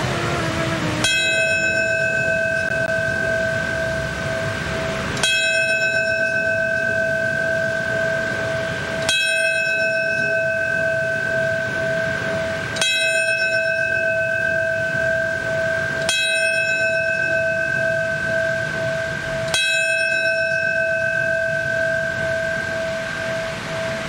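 A brass fire-department bell on a stand, struck six times about four seconds apart. Each strike rings on as a clear, lingering tone that runs into the next. It is tolled to mark a moment of silence.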